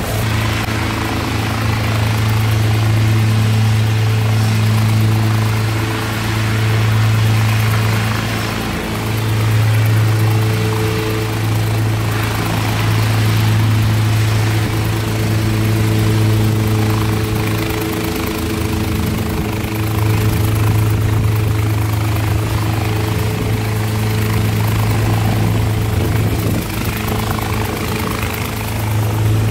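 Zhonglian F27 ultralight helicopter's engine running steadily at idle on the ground before lift-off: a low, even hum that rises and falls slightly in loudness.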